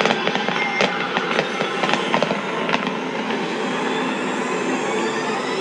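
Fireworks crackling in a dense, rattling wash, with a few sharp cracks in the first half.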